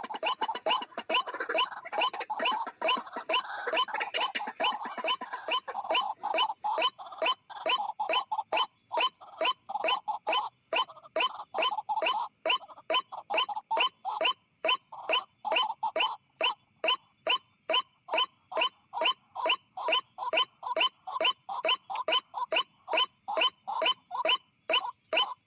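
White-breasted waterhen (ruak-ruak) call used as a lure, a rapid series of short, harsh notes about three a second, each falling in pitch. The notes overlap densely for the first several seconds, then settle into an even, steady rhythm.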